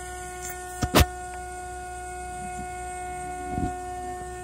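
CNC milling machine running, a steady whine of several held tones. Two sharp knocks come close together about a second in, and a lighter one comes near the end.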